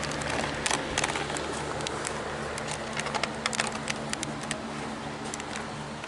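Electric box fan running with a steady hum and rush of air, with scattered light clicks and crackles on top.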